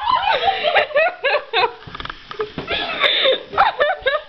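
Female voices making short, high, wordless whimpers and squeals in quick succession: frightened, distressed cries.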